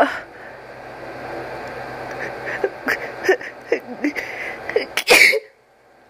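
A person's sneeze buildup: a run of short, halting gasping breaths, then one loud sneeze about five seconds in that cuts off sharply. A brief sharp burst comes at the very start.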